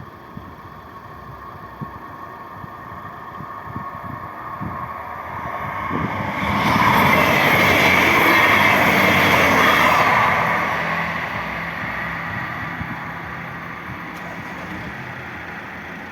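A train passing over a level crossing: its rumble builds over a few seconds, is loudest for about four seconds as it goes by, then fades away.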